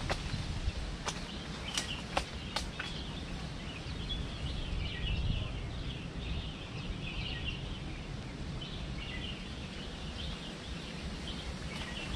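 Outdoor ambience: a steady low rumble like wind, with small birds chirping and twittering through most of it, and a few sharp clicks in the first few seconds.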